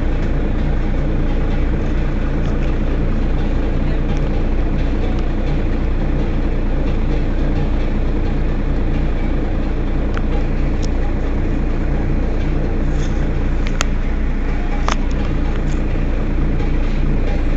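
Mercedes-Benz Citaro Facelift city bus engine running steadily at an even low note, with no revving. A few short clicks or knocks sound about two-thirds of the way in.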